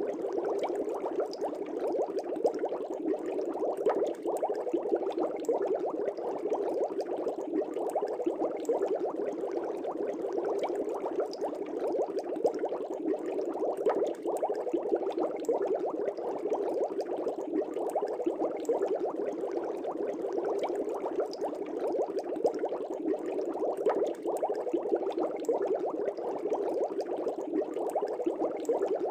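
Air bubbles streaming up through aquarium water, a dense, steady bubbling and popping that does not let up.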